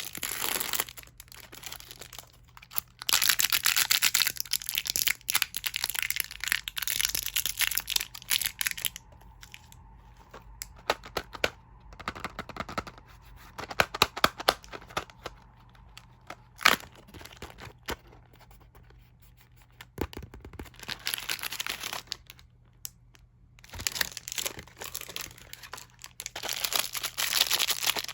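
Plastic candy wrappers and packaging being torn open and crinkled by hand, in bursts with quieter pauses between. Scattered sharp clicks come in the pauses.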